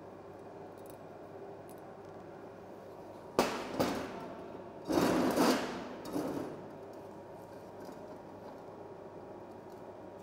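A steel angle square clanking and scraping on a steel welding table as it is set down and pushed against the corner of an angle-iron frame. A sharp metallic knock comes about three and a half seconds in, then a second knock. A louder, longer clatter and scrape follows around five seconds, and a smaller knock just after six.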